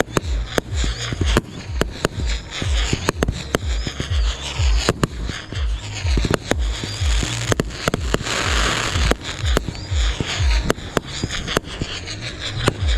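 Fireworks going off, with many sharp bangs and a dense crackling burst about eight seconds in, over music with a heavy bass beat.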